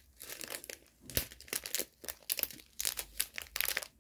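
Plastic bags crinkling as they are handled, in a run of irregular sharp crackles.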